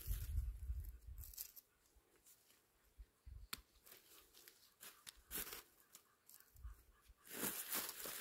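Faint rustling and tearing of young hardy kiwi shoots and leaves as unwanted shoots are pulled and cut off the vine, with a single sharp click about three and a half seconds in. The loudest rustling comes near the end.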